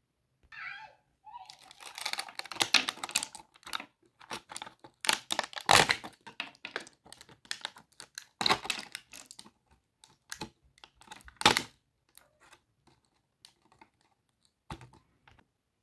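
Clear plastic blister packaging crinkling and crackling as toy dollhouse furniture pieces are pushed out of it. The crackles come in irregular bursts, loudest in the middle, and thin to a few faint crackles near the end.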